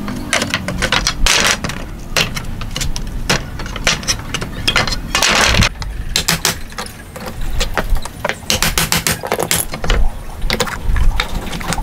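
Metal hand tools working nails out of old pallet wood: a series of sharp knocks and taps of a hammer against pliers and boards, with a few longer scraping sounds as nails are drawn out of the wood.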